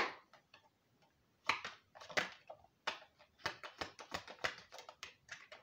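A deck of reading cards being shuffled by hand: an irregular run of short card slaps and clicks, coming faster in the second half.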